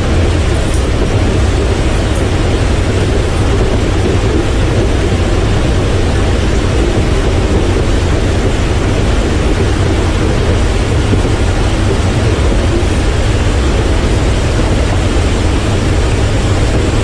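Steady roar of a C-17 Globemaster's jet engines, a deep rumble with a broad rushing hiss above it, holding even throughout.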